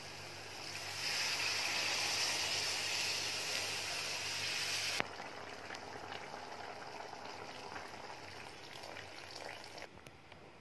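Water poured from a jug into a hot pan of masala, a loud hiss of splashing and sizzling that cuts off suddenly about five seconds in. After that comes a quieter sound of liquid being poured into the curry.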